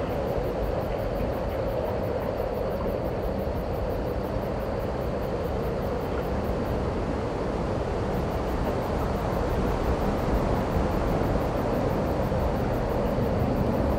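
A steady, even rushing drone with no separate events, getting slightly louder in the second half.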